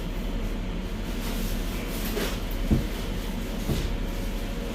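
Steady kitchen background hum with a couple of light knocks, about three seconds in and again a second later.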